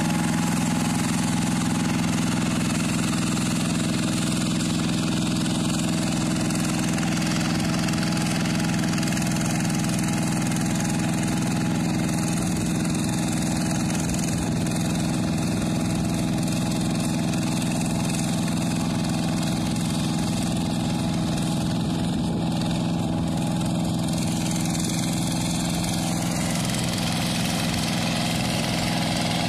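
Two-wheel hand tractor engine running steadily under load as it ploughs a flooded rice paddy, growing slightly fainter as the tractor moves away.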